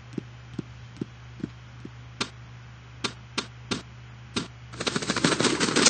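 Cartoon sound effects of a robot handling a cardboard box: sparse, light clicks and taps, about one or two a second. From about five seconds in they give way to a louder, busier rattling clatter, like rummaging through the box's contents.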